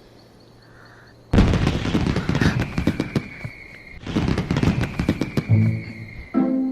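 Fireworks going off in two loud bursts, about a second in and again about four seconds in, each followed by crackling and a high whistling tone. Gentle pitched music comes in near the end.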